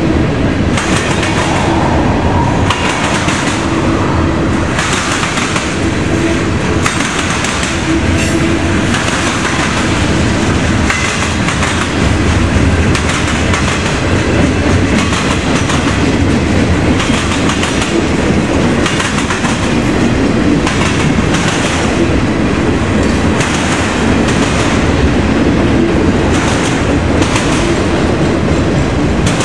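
Freight cars of a long train rolling past, their wheels pounding over a railroad crossing diamond in a repeating clatter, with steady rumble and rail noise between the hits.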